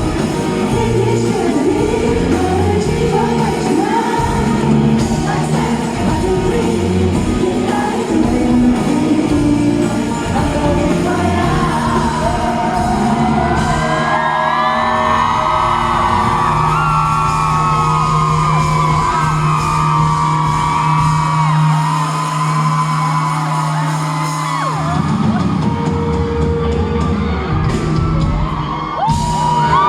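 Live pop-rock band playing amplified in a large hall, with singing and shouts over the music. The first half is full and dense with drums; from about halfway, held notes and wavering high lines take over, and the texture thins near the end.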